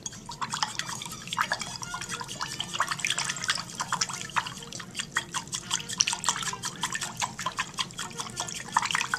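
A hand swishing and splashing water in a bowl, mixing paint into it. It makes a steady run of quick, irregular little splashes and drips.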